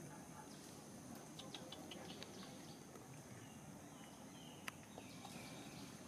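Quiet outdoor ambience with a few faint, short high chirps and soft clicks, and one sharp click about two-thirds of the way through.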